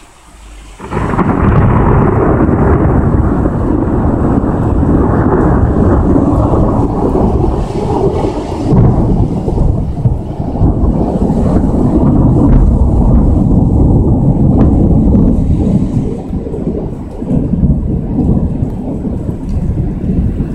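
Thunder: a loud crack about a second in, then a long rumble rolling on for nearly twenty seconds.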